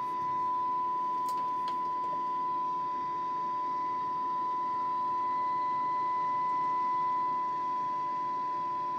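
CB receiver's speaker reproducing a steady 1 kHz test tone from the radio test set, with receiver hiss behind it: a weak signal of about a microvolt, near the set's sensitivity limit for SINAD testing. Two faint clicks come a second or two in.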